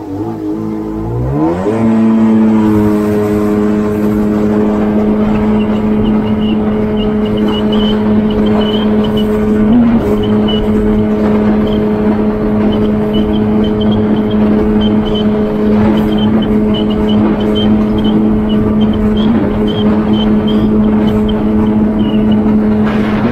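Jet ski engine speeding up over the first couple of seconds, then running at a steady high throttle with an even pitch.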